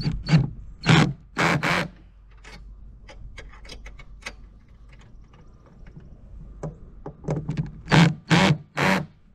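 Cordless 19.2-volt drill run in short bursts of the trigger, driving a machine screw into the rod holder's mount: a few quick runs in the first two seconds, then another cluster near the end.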